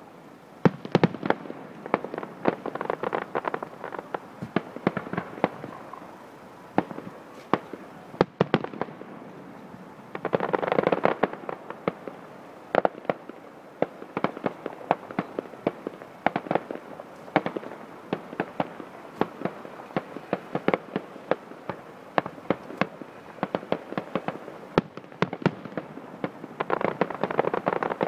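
Many fireworks going off at once: a constant run of sharp bangs and crackles, swelling into denser crackling about ten seconds in and again near the end.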